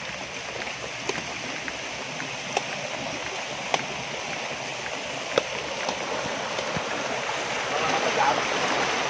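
Steady rush of water, growing a little louder near the end, with a few sharp clicks scattered through it.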